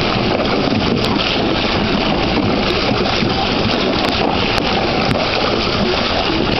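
Water splashing and churning steadily in a small plastic kiddie pool as a child kicks and spins around in it.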